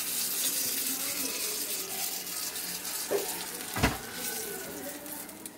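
Hot oil sizzling and hissing around a banana-leaf-wrapped fish parcel as it is fried and lifted out, the hiss fading over the second half. A light click about three seconds in, then a sharp knock just before four seconds as the parcel is set down on a plate.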